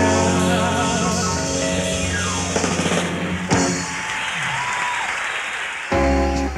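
A live rock band holds a final chord with guitar and drums, ending on a hit about three and a half seconds in. Audience applause follows, and then the band's music starts again abruptly near the end.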